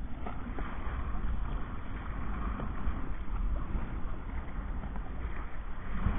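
Wind rumbling on the microphone of an action camera mounted on a kayak's bow, with water lapping and splashing around the hull in small, irregular splashes.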